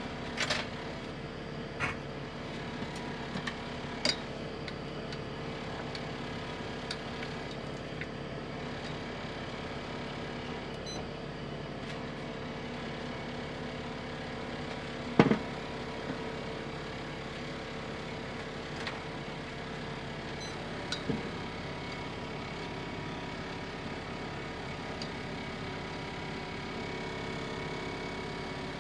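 Steady hum of an induction cooktop running, with a few faint steady tones in it. It is broken by several light clicks in the first few seconds and one sharp knock about halfway through, as tableware is moved about on the counter.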